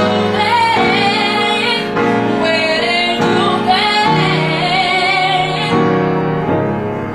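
A woman singing an R&B song live, her voice wavering and gliding through the melody over steady held chords from an accompanying instrument.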